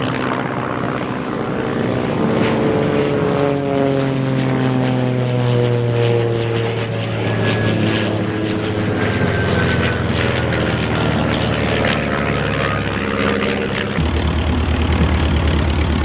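Van's RV propeller aircraft flying past, their engine note sliding down in pitch as they go by. Near the end the sound changes abruptly to a low, steady throbbing engine.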